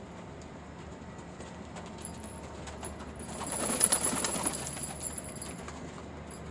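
Domestic pigeons cooing, with a louder rustling burst lasting about a second midway.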